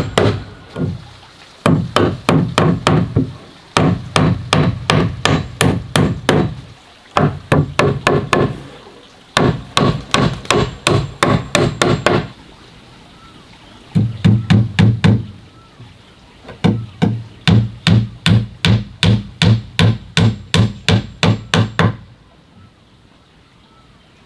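A hammer driving nails into wooden boards, in quick runs of strikes at about five a second with short pauses between runs. The hammering stops near the end.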